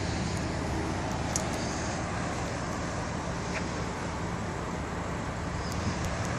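BMW M4's twin-turbo straight-six idling steadily, warmed up and really quiet.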